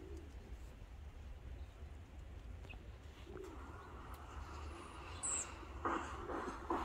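Backyard bird recording played back through a phone speaker: faint bird calls over a low city rumble, with a short high falling note about five seconds in and louder calls near the end.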